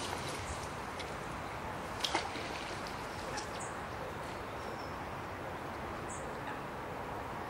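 Steady outdoor background hiss with a few short, high bird chirps, and two quick clicks close together about two seconds in.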